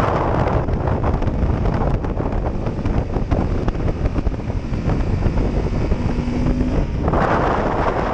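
Wind rushing over a helmet-mounted microphone, with a big twin-cylinder adventure motorcycle's engine and tyres running underneath at road speed. The rush grows louder about seven seconds in.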